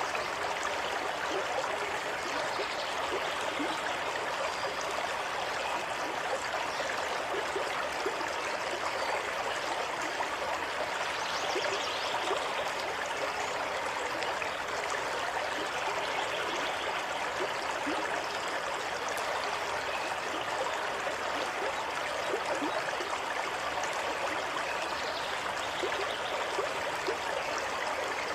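Water running steadily over rocks in a stream, with small gurgles and trickles.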